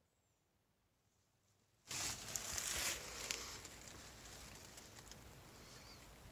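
Near silence, then about two seconds in a sudden rustling and crackling with many small clicks, loudest for about a second and then easing off: dry leaves being disturbed and handling noise close to the microphone.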